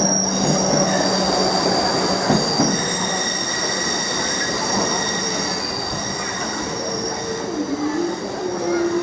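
South Western Railway Class 444 electric train rolling over the level crossing and away, its wheels squealing on the rail in steady high-pitched tones over the rumble of the wheels, the rumble easing as it moves off.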